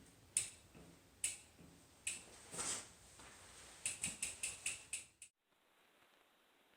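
Sharp mechanical clicks and knocks from hands working on a mountain bike tire and wheel: a few separate clicks, then a quick run of about six, cutting off suddenly just after five seconds.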